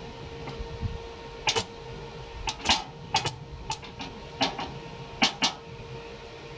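A run of about a dozen sharp clicks and knocks, irregularly spaced, starting about a second and a half in and stopping near the end, over a steady electrical hum.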